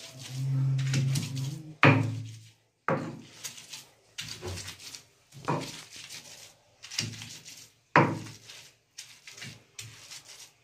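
Stone roller rocked and knocked against a silauto, a flat stone grinding slab, crushing leafy greens: a knock and a short grinding scrape roughly every second. The loudest knocks come about two seconds in and near eight seconds.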